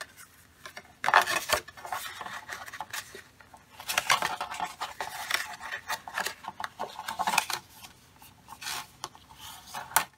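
Scored cardstock being folded and its creases burnished with a bone folder: repeated rubbing and scraping strokes of the folder across the paper, in several bursts.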